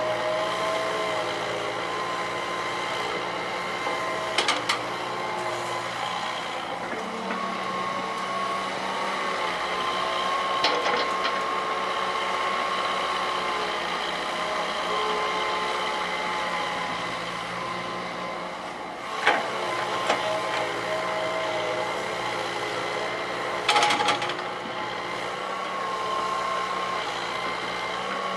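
Hitachi EX120 hydraulic excavator working: its diesel engine runs under load with a steady hum, and a whine drifts up and down in pitch as the boom and bucket move. Sharp knocks cut through it about four or five times.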